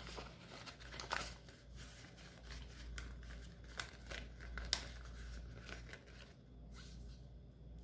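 Paper banknotes being handled and slipped into a clear plastic zip pouch: soft rustling and crinkling of bills and plastic in short, scattered bursts, with a few sharper clicks.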